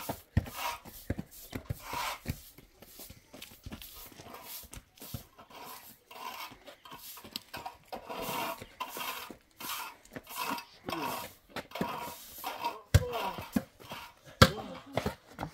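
People panting and giving short breathy cries while playing a ball game, with a few sharp hits, the loudest near the end.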